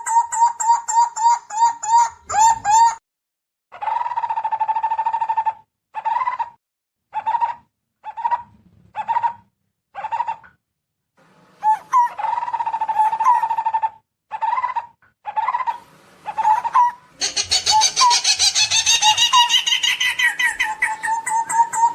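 Barbets calling: bouts of fast, evenly repeated notes pitched around 1 kHz, some bouts a second or two long and others short, with brief pauses between them. From about two-thirds of the way through, a denser, louder layer of higher repeated notes joins in over the low calls.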